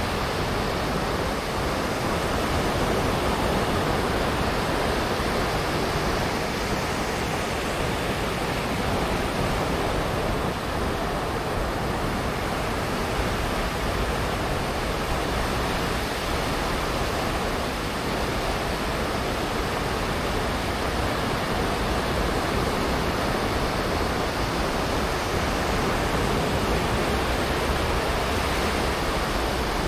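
Sea waves washing onto a sandy beach: a continuous, steady rush of surf with only slight swells in level.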